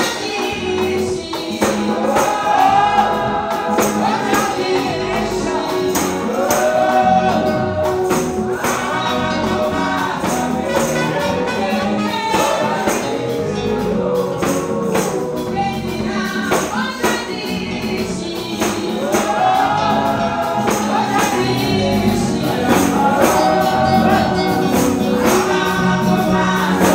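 Gospel song sung by a woman into a microphone through the church PA, with music behind her and a steady percussion beat about twice a second.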